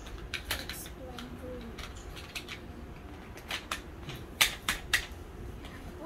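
Hard plastic parts of a take-apart toy bulldozer kit clicking and knocking as they are handled and screwed together. Three sharp clicks close together, about four and a half to five seconds in, are the loudest.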